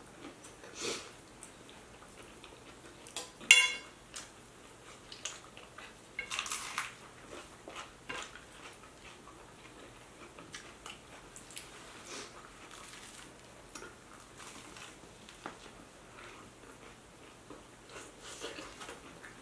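Close-miked eating: biting and chewing sub sandwiches, with scattered clicks of a fork against a plate. The sharpest clink comes about three and a half seconds in.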